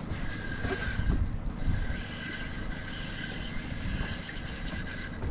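Wind buffeting the microphone on an open boat at sea, a constant low rumble with gusty swells, over a faint high whine that comes and goes.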